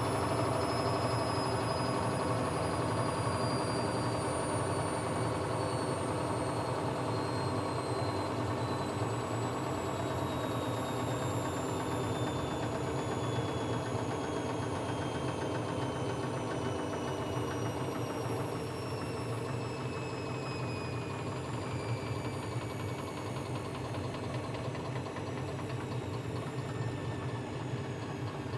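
Siemens WM14S794GB front-loading washing machine slowing down from its 1600 rpm final spin. The motor's whine falls steadily in pitch over a constant drum rumble, and the sound eases a little as the drum slows.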